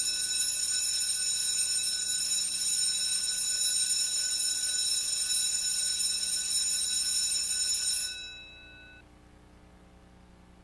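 School bell ringing, a steady high-pitched ring that starts abruptly, holds for about eight seconds, then cuts off, with a faint ring dying away over the next second.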